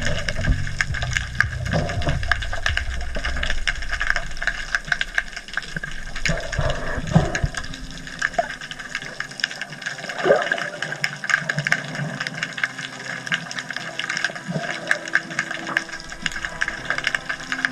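Underwater sound through a camera housing just below the surface: dense, irregular crackling clicks over a steady hiss, with water movement and a low rumble in the first couple of seconds.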